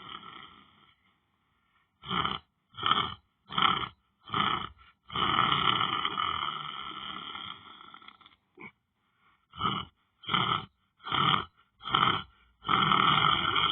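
A person snoring in sleep: long drawn-out snores alternate with runs of four or five short snorts, a little more than one a second, with a brief pause before each run.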